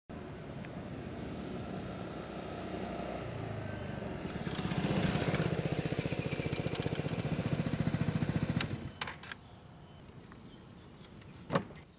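Motor scooter engine approaching and running close by, getting louder, then cutting off about nine seconds in. A single sharp clunk near the end.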